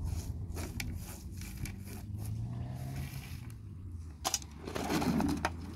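Steady low hum of a car engine as the car pulls away, its pitch edging up briefly. Over it come scattered scrapes and clicks of hands working on a woven tray on gravel, and a louder rustling scrape about five seconds in.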